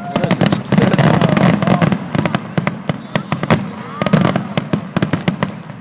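Fireworks show in full swing: many sharp bangs and pops in rapid succession over a low rumble.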